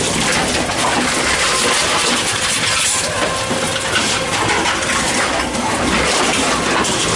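Tomra T-63 HCp reverse vending machine running steadily as plastic bottles are fed in, with a dense clatter of bottles and mechanism.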